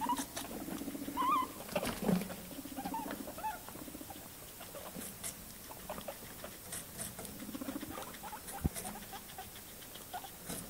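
Abyssinian guinea pigs chewing cucumber: a rapid patter of small wet crunching clicks. A few short, high squeaks come in the first few seconds.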